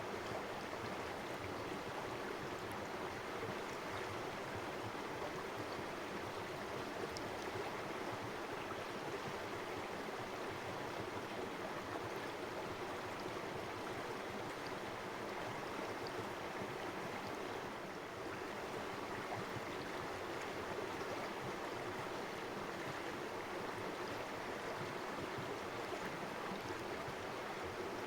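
Shallow river running steadily over rocks, a continuous rush of water with no breaks.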